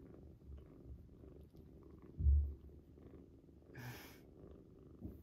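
A kitten purring steadily, close to the microphone, with a low thump about two seconds in and a brief rustle near four seconds.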